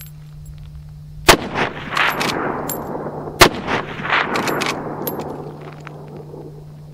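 Two shots about two seconds apart from a Marlin Model 30TK lever-action carbine in .30-30, each followed by a long echo rolling back off the surrounding hills. Sharp metallic clicks of the lever being worked come between and after the shots.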